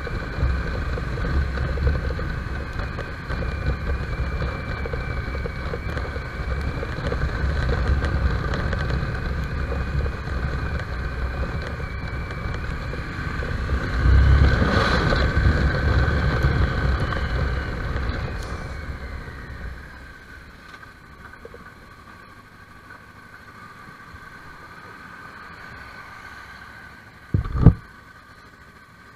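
Motorcycle riding in city traffic, heard from on the bike: engine rumble and wind noise on the microphone, loudest about halfway, then much quieter for the last third. A single short thump near the end.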